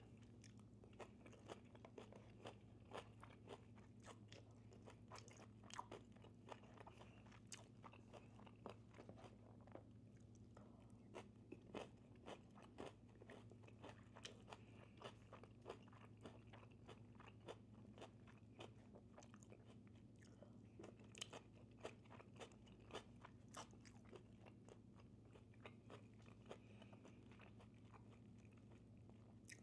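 Faint chewing and crunching of food close to the microphone, with many small irregular clicks and crackles, over a steady low hum.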